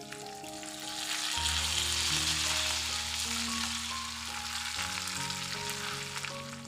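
Marinated tandoori chicken pieces frying in hot oil in a pan, a loud steady sizzle that cuts off suddenly near the end.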